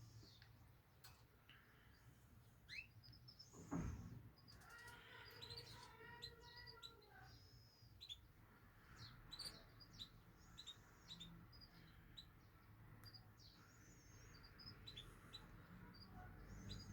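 Faint, scattered high chirps from caged birds throughout, with a denser run of chirping around the middle and a single knock about four seconds in.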